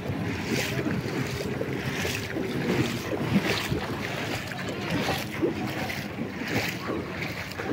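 Feet wading through shallow muddy floodwater, sloshing and splashing with each step, about two steps a second.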